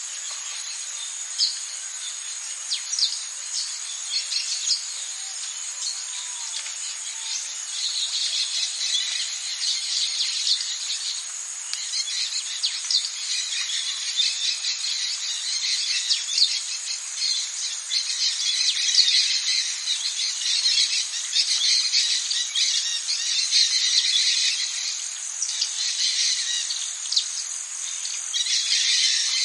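Rainforest ambience of insects: a steady high-pitched drone with dense, fast chirping that grows thicker after several seconds, and a few bird calls.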